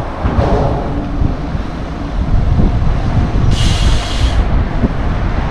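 Steady low rumble of wind and traffic noise while a bicycle rides across a long road bridge. A short hiss comes about three and a half seconds in.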